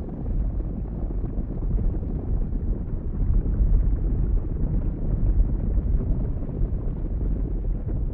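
Steady low rumbling noise, like wind buffeting the microphone, with no clear moo or other distinct call.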